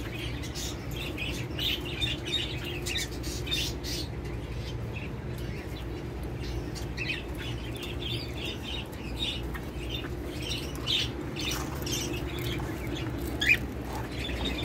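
Many small birds chirping in short, quick calls, scattered throughout, over a steady low hum.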